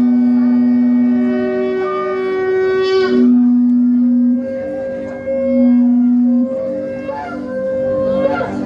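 Several shofars blown together in long held blasts at different pitches, overlapping one another and starting and stopping at different times.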